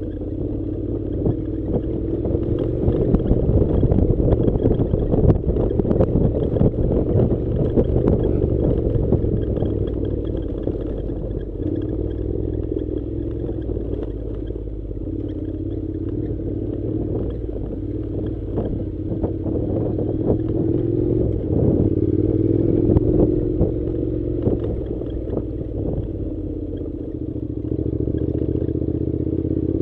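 Honda NC700's parallel-twin engine running steadily as the motorcycle rides a gravel dirt track, its pitch rising and falling a little, with frequent knocks and clatter from stones under the tyres and suspension.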